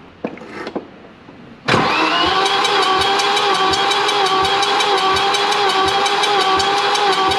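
Starter motor cranking the engine over with the spark plugs out for a compression test on cylinder three: a steady whine with even pulsing, starting suddenly about two seconds in.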